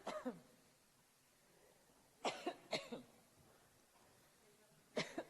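A woman's coughing fit: short, harsh coughs in clusters, a couple at the start, three in quick succession about two seconds in, and another near the end, with quiet pauses between.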